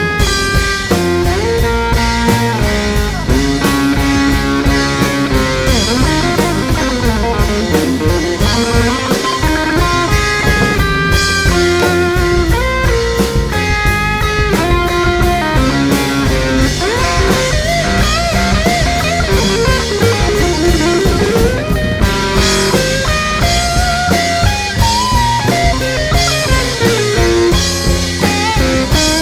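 Background rock music with electric guitar and a drum kit, a steady beat and bending guitar notes.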